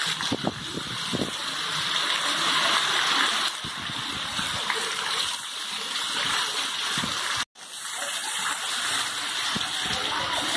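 Heavy wind-driven rain pouring down steadily, with water running off the roof edge and splashing onto the paving. Scattered low splats of drops sound near the microphone, and the sound cuts out for an instant about seven seconds in.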